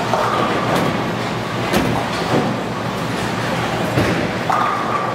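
Bowling balls rolling down wooden lanes with a steady rumble, broken by a few sharp knocks and clatters of balls hitting pins.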